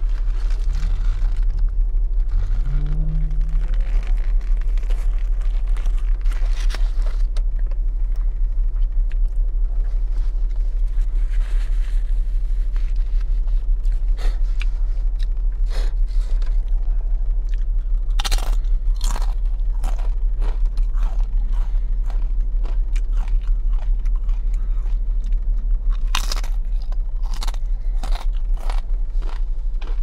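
Close-miked chewing of a barbecue burger: crunching and mouth clicks, clustered most densely about two-thirds of the way through and again near the end, over a steady low hum.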